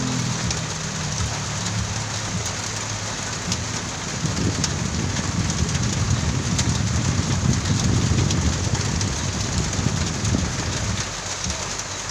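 Heavy rain pouring onto pavement, a steady hiss. A low rumble swells from about four seconds in and eases near the end.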